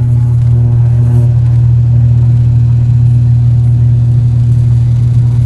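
Turboprop airliner's engine and propeller running, heard from inside the cabin beside the propeller: a loud, steady low drone.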